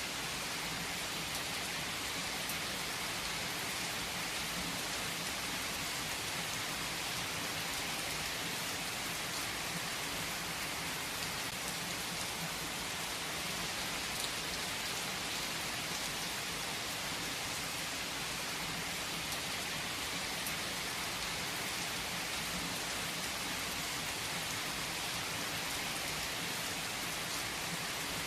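Steady rain falling, an even hiss of many drops with faint individual drop taps, unchanging throughout.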